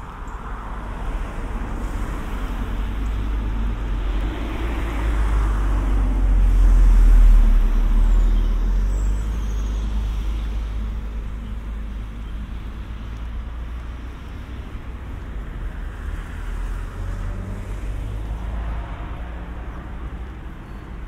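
Cars passing on a street, recorded with a binaural microphone. One car's engine and tyre noise grows to a peak about seven seconds in and then fades away. A second, quieter car passes near the end.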